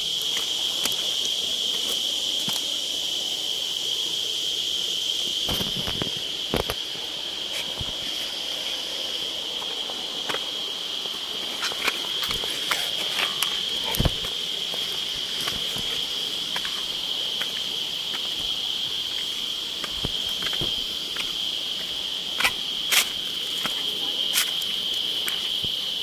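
Steady, high-pitched drone of insects, with scattered footsteps and scuffs on rock and dry leaves and a few sharper knocks.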